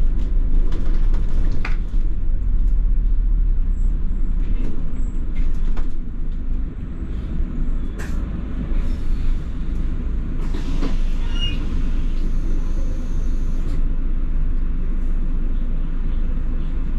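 Double-decker bus running, heard from inside the cabin: a heavy, steady low engine and road rumble with scattered rattles and clicks. A hiss rises over it a little past the middle and lasts about three seconds.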